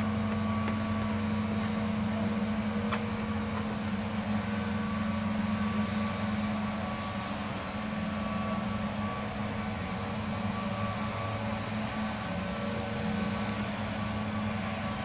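Chevrolet Silverado pickup truck idling in the driveway: a steady, even engine hum.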